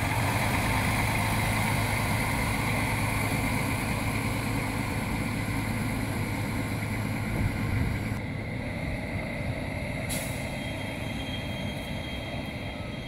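A small narrow-gauge diesel locomotive's engine running steadily as the locomotive moves along the track, with a low hum. It grows fainter after about eight seconds as it draws away. A sharp click comes about ten seconds in.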